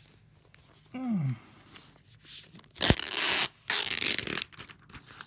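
Packaging being pulled and lifted from a white box, with a sharp rustling, tearing noise that lasts about a second and a half from near the middle. A short low voice sound, falling in pitch, comes about a second in.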